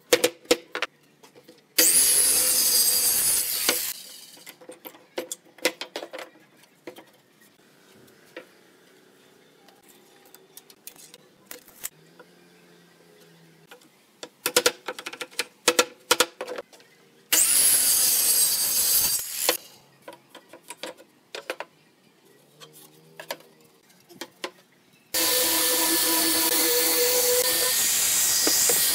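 Claw hammer tapping nails into a pine strip on a pine panel, in clusters of sharp knocks, broken twice by loud two-second bursts of a power tool. About 25 seconds in, an angle grinder with a sanding disc starts and runs steadily with a high whine.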